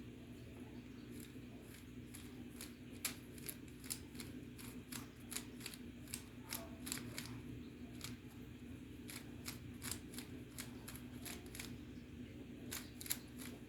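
Rubik's Cube faces being twisted by hand in quick, irregular clicks, several a second, while the cube is being solved. A steady low hum runs underneath.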